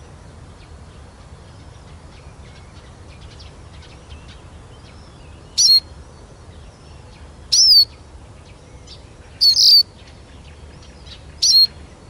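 Eurasian siskin singing: a quiet, continuous twittering song, with loud, clear, pitch-bending calls roughly every two seconds from about halfway through.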